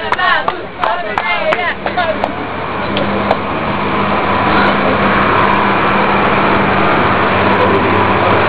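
A few spoken words, then a motor vehicle's engine running with a steady hum that grows louder over about two seconds and then holds level.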